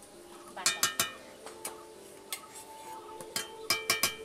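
Steel spoon clinking against a steel bowl and pan while spice paste is tapped out into the curry, with a few sharp clinks that ring on, about a second in and again near the end.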